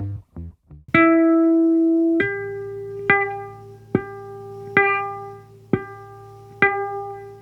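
Bass guitar playing high ringing notes: one note plucked about a second in and left to ring, then a slightly higher note struck over and over at the same pitch, roughly once a second.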